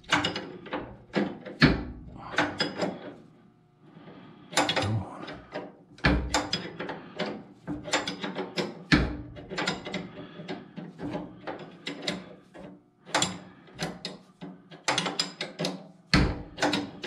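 Ratcheting wrench clicking in quick runs, pausing and starting again, as fine-thread bolts on a garden tractor's clutch linkage are run in; fine threads take many turns.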